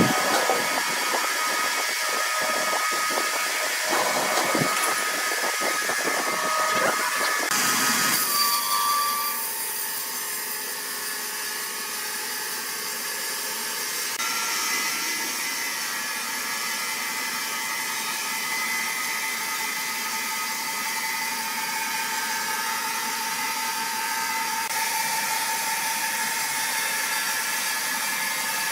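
Sawmill machinery running: irregular knocking and clatter for the first several seconds, then, after an abrupt change about eight seconds in, a steadier mechanical hiss with a faint steady whine.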